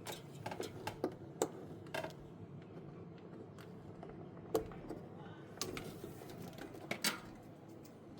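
Irregular light clicks and knocks of hands working inside an iced-up refrigerator freezer compartment, over a steady low hum.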